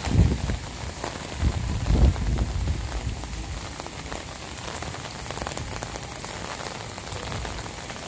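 Rain falling and pattering on an umbrella held overhead, a steady hiss of many small drop ticks. Gusts of strong wind buffet the microphone with a low rumble in the first few seconds, then ease off.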